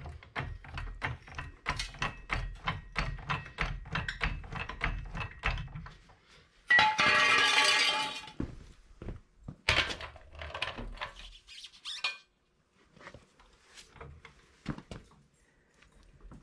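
Car jack worked in quick strokes, squeaking and clicking about three times a second with low thumps as the car is lifted. This is followed by a loud rushing scrape of about a second and a half, then scattered knocks and clatter as a wheel dolly is set under the tyre.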